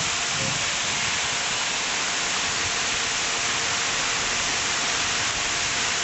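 Fountain water falling and splashing steadily into its basin, a constant rushing spatter.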